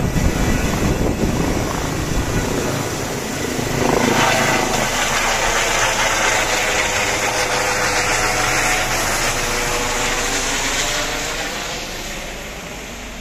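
Airbus H135 helicopter in flight: a twin-turbine engine whine with its Fenestron shrouded tail rotor and main-rotor noise. The sound swells about four seconds in as the helicopter passes overhead, then fades as it flies away.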